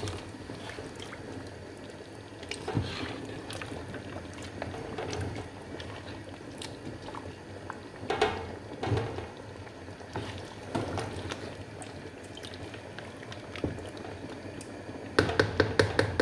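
A pot of tomato-and-meat stew bubbling steadily on the boil. A few scattered scrapes and clicks are heard from the spoon in the pot, and near the end comes a quick series of about six knocks a second as the spoon strikes the pot.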